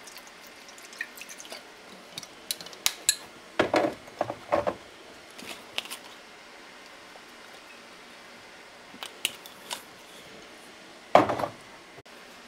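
Cookware and utensils being handled: scattered light clicks and clinks, with a few louder knocks about four seconds in and one near the end.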